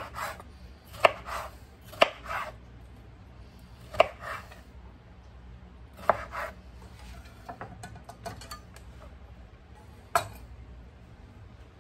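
Kitchen knife cutting food on a cutting board: a handful of sharp knocks, spaced irregularly one to four seconds apart, with softer scraping and handling noises between.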